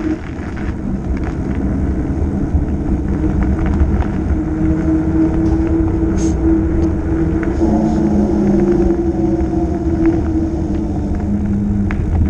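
Fat bike's wide knobby tyres humming on a paved road as the bike rolls along, a steady drone whose pitch shifts with speed, over a low wind rumble on the microphone.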